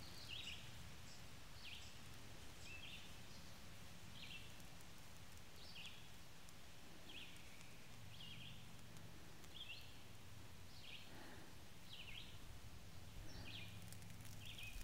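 Faint bird chirping over and over, short high notes about once a second, over a low steady hum.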